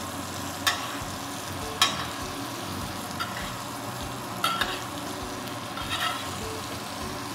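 Steak frying in butter in an enamelled cast-iron skillet, a steady sizzle as it is basted with a metal spoon. The spoon clinks against the pan a few times.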